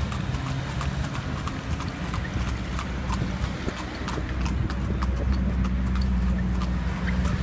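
A carriage horse's hooves clip-clopping on pavement in a regular rhythm, about two to three strikes a second, over a low steady rumble.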